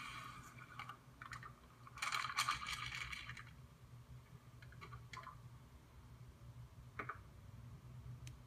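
Kitchen utensils and dishes being handled: scattered light clicks and clinks, with a louder rattling scrape for about a second, about two seconds in.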